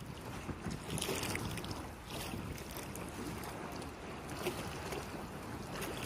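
River water washing and splashing past a moving boat, with wind buffeting the microphone; a steady rushing noise with no clear engine tone.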